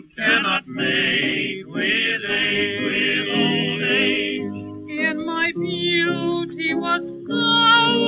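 1934 Decca 78 rpm record of a comedy vocal with piano: voices sing a wordless passage with strong, warbling vibrato over the piano accompaniment, in short phrases broken by brief gaps.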